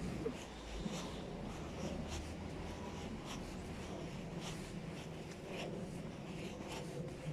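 Footsteps on a pavement, about two steps a second, over a low steady rumble.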